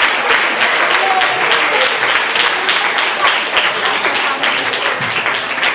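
Congregation applauding: many hands clapping in a dense, steady patter that eases slightly near the end.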